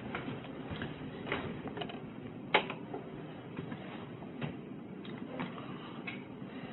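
A hinged pantry door being opened, with a sharp latch click about two and a half seconds in, the loudest sound, among soft footsteps and light knocks on a hard floor about every half second.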